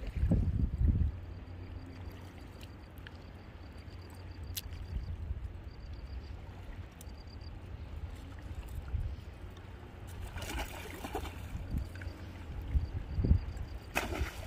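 Shallow lake water lapping and trickling at the shore over a steady low rumble, with a brief noisy burst about ten seconds in. Near the end a sharp splash as something is thrown into the lake.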